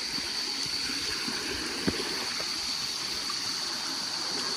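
Forest stream flowing steadily, an even rush of water, with one brief knock about two seconds in.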